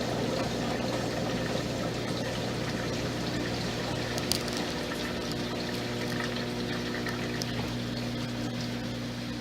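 Brastemp 8 kg washing machine running its spin cycle: a steady hum with a whine like an aircraft turbine, the sign of a dried-out, failing drum bearing that needs replacing. Water runs through the drain pump, and some of the higher tones fade about three quarters of the way in.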